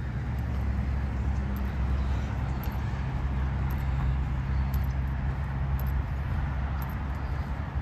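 Footsteps walking on a park path, faint clicks about once a second, over a steady low rumble.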